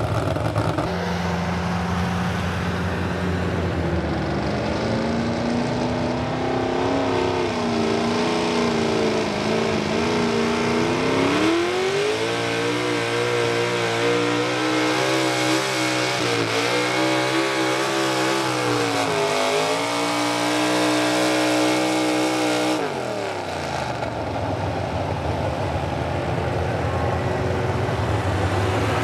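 V8 engine of a modified pulling tractor running hard under load as it drags the weight sled. The revs climb from a few seconds in, jump higher near the middle and waver there as the load comes on, then drop steeply about 23 seconds in as the throttle comes off at the end of the pull.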